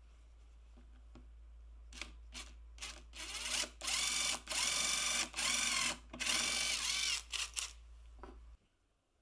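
Electric hand drill with a thin twist bit boring a small hole into a wooden board. It is run in a string of trigger pulls: a few short blips, then about five longer runs with the motor whine rising and falling in pitch, then a few last blips before it stops.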